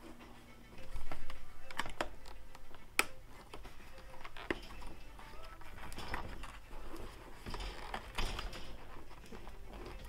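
Irregular clicks, taps and rustling as hands work a plastic intercom clamp and speaker into a motorcycle helmet's padded liner, starting about a second in.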